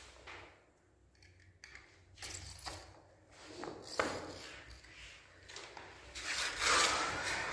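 Snap-off utility knife cutting a hard rubber gym floor tile: quiet scraping strokes and a few sharp clicks, then a louder stretch of scraping near the end.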